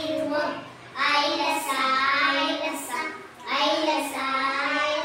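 Two young children singing a Tamil nursery song together, in two phrases with a short breath between them.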